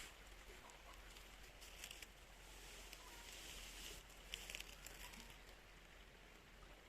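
Faint river water flowing, a steady watery hiss with small splashes and trickles, with a brief cluster of splashes about four and a half seconds in.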